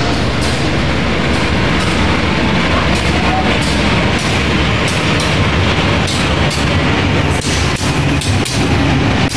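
CC 201 diesel-electric locomotive running as it approaches and passes close by, hauling a passenger train, its engine running steadily. From about seven seconds in, the wheels click over the rail joints.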